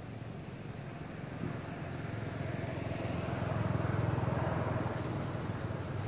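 A motor vehicle passing by: a low engine drone that swells to its loudest about four seconds in, then fades.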